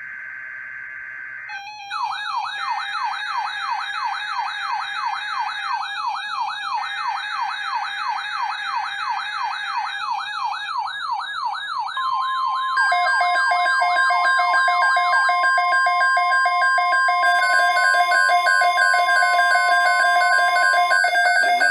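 Layered electronic emergency-alert sounds. An electronic siren sweeps up and down about three times a second, and shrill data-like tones come and go over it. About halfway through, a single steady alert tone like the NOAA Weather Radio 1050 Hz tone sets in, more alarm tones pile on, and the whole gets louder.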